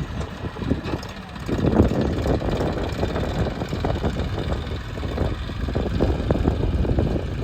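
JCB 3DX backhoe loader's diesel engine running under work, with a rough, uneven beat; it gets louder about a second and a half in.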